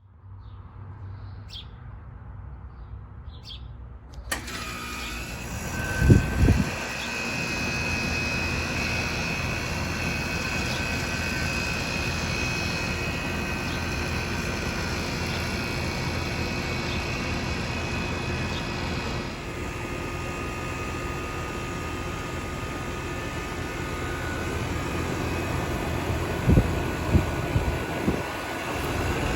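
A 1999 Trane XE1000 heat pump's outdoor unit starting up in cooling mode. After a few seconds of quiet with a few bird chirps, the Climatuff reciprocating compressor and fan kick on suddenly about four seconds in and then run steadily, with a few low thumps soon after the start and again near the end. The owner found it sounded a bit tired.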